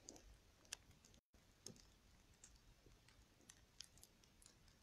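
Near silence, with a few faint, scattered clicks, and the sound cuts out for an instant about a second in.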